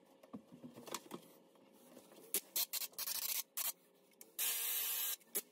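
Handheld paint sprayer spraying onto a ceiling. About two seconds in come several short hissing bursts as the trigger is pulled and released, then a steady spray hiss for nearly a second near the end, after a few faint scratches.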